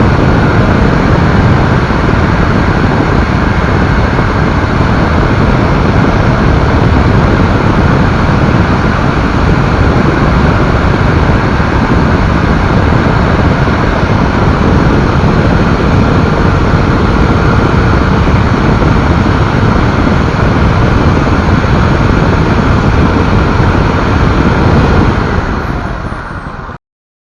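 Electric drill running steadily and loudly with a sanding accessory, fading slightly near the end before cutting off abruptly.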